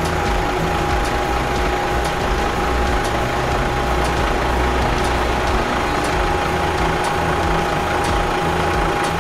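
Heavy machine's diesel engine running steadily at idle, with a constant whine over a low rumble.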